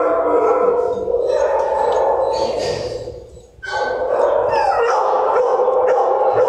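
Kennel dogs barking, howling and whining together in a continuous chorus, with a brief dip about halfway through.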